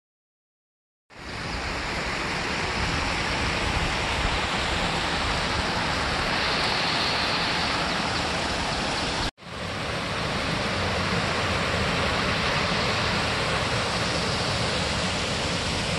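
River water rushing over rock rapids at the head of a waterfall: a loud, steady rush that starts about a second in and cuts out for an instant about nine seconds in.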